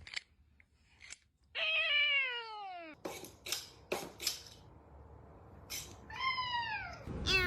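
A domestic cat meowing twice, each a long drawn-out meow falling in pitch, with several sharp clicks or light knocks between the meows.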